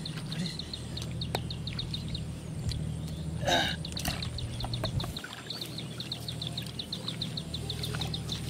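A bird chirping in a rapid, even series, about six high chirps a second, over a low steady rumble. One louder short call comes about three and a half seconds in.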